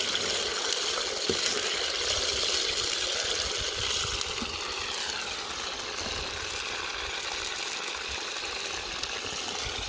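A fresh batch of hand-cut potato fries frying in hot oil in a kazan: a steady sizzle with small crackles.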